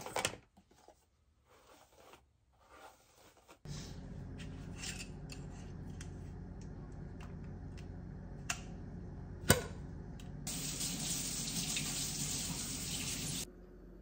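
Kitchen handling noises: faint clicks and rustles, one sharp knock, then about three seconds of a kitchen tap running that starts and stops abruptly, over a steady low hum.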